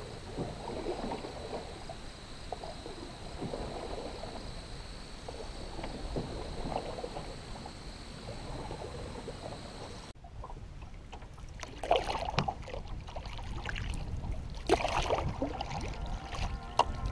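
Light water lapping against a stony shoreline as a canoe is paddled away. About ten seconds in, the sound changes abruptly to water sloshing and splashing against the canoe's hull, with a splash roughly every three seconds as it is paddled.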